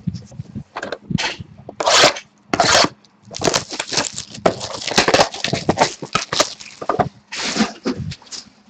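A sealed box of hockey cards being opened by hand: a run of irregular crinkling, tearing and scraping of plastic wrap and cardboard as the packs are pulled out.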